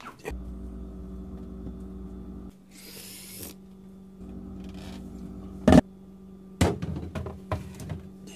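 Refrigerator humming steadily while a drink container is put inside, with a short rustle and a few sharp knocks and clunks about halfway through.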